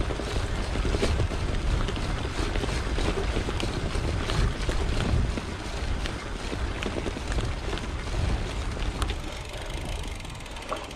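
Gravel bike being ridden over a rough off-road trail: tyres crunching and the bike rattling with many small knocks over the bumps, with wind buffeting the microphone.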